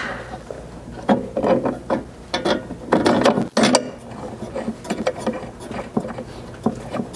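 Light, irregular clicks and rattles of metal hardware as a 1/4-20 button head bolt is started by hand into the tailgate table frame on a Jeep JL tailgate, the frame and loose bolts shifting against the gate.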